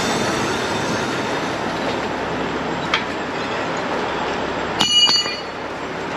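Heavy-duty wrecker's diesel engine running steadily, with a small tap about three seconds in and a sharp metal clank that rings briefly about five seconds in.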